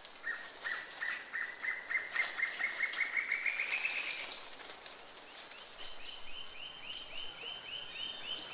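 A bird calling in rapid series of short, evenly repeated chirps. The first run starts right away and climbs slowly in pitch for about four seconds. After a short pause a higher run starts about six seconds in, at roughly five notes a second.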